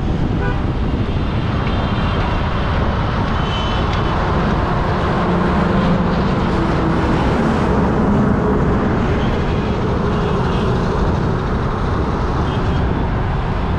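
Busy highway traffic heard from a moving bicycle: a steady rush of engines and tyres, with a heavy truck's engine passing close by around the middle.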